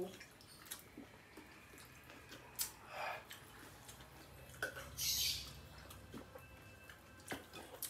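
Quiet mealtime sounds: scattered small clicks and taps of plates and hands eating, with a short hiss about five seconds in.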